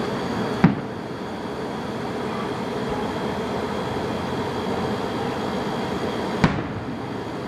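Two fireworks shells bursting, sharp bangs about six seconds apart, the first just under a second in and the second near the end, over a steady background rumble.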